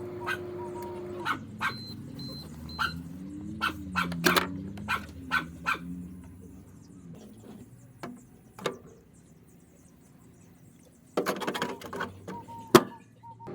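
Sharp snapping clicks from an aluminium energy drink can sparking inside a microwave oven, coming singly and then in a dense crackling cluster near the end. A steady hum stops about a second in.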